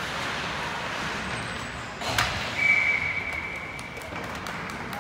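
Ice-rink ambience with a sharp knock about two seconds in, followed by a referee's whistle blown as one steady shrill note for about a second and a half, stopping play.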